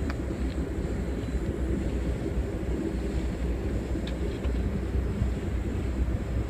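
Steady low rumble of an Amtrak passenger train in motion, heard from inside the coach.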